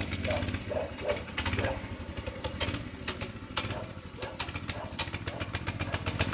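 Baja Warrior 200cc minibike's single-cylinder four-stroke engine running as it is ridden up close, with a quick, uneven popping exhaust beat over a steady low drone.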